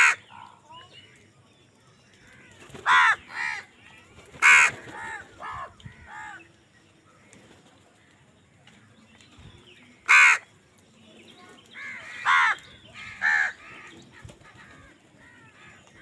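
House crows in a feeding flock cawing: harsh calls that come singly or in quick runs of two or three, loudest at the start and around three to five and ten to thirteen seconds in, with quieter calls between.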